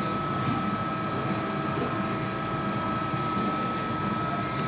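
Haco PPM 135-ton CNC hydraulic press brake running steadily: an even mechanical hum with one high steady tone over it.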